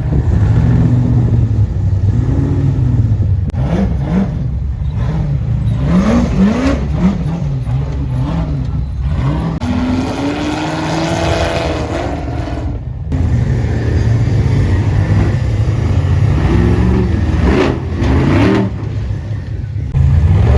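Off-road race buggy engines revving in repeated bursts, the pitch climbing and dropping as the cars crawl and climb over rocks, with one longer rising rev about halfway through.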